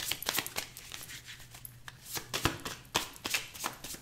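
Thin tarot cards being shuffled overhand, a rapid, irregular run of soft clicks and flicks as packets of cards slap onto the deck.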